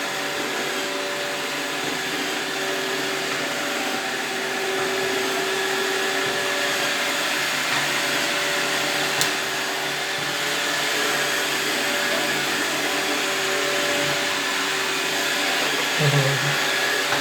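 iRobot Roomba 612 robot vacuum running while it cleans the floor: a steady suction-motor and brush hum with a few held whining tones. A single sharp click comes about nine seconds in.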